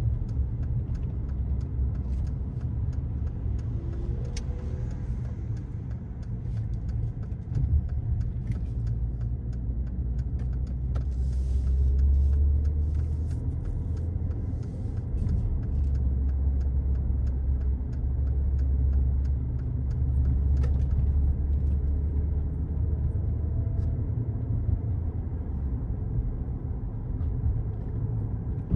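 A car driving at speed, heard as a steady low rumble of engine and tyre-on-road noise that swells and eases slightly now and then.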